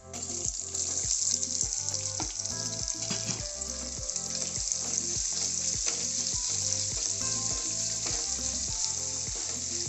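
Cut onions tipped into hot oil, starting a loud, steady sizzle the moment they hit the pan. The frying goes on as they are stirred with a spatula in a non-stick kadai.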